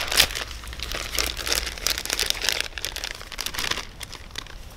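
Plastic packaging crinkling, with light clicks as small parts are handled; busiest in the first four seconds, then fading.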